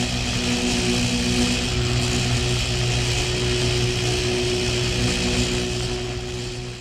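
Electrical buzz of high voltage: a steady mains hum with a harsh hiss over it, fading out near the end.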